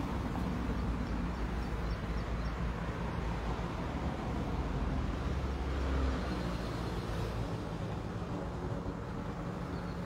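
A steady low engine rumble, like a motor vehicle running, stronger for the first six seconds and easing somewhat after.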